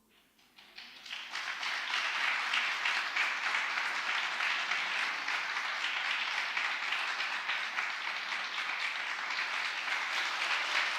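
Audience applauding: a few scattered claps about half a second in swell within a second or so into steady, dense applause.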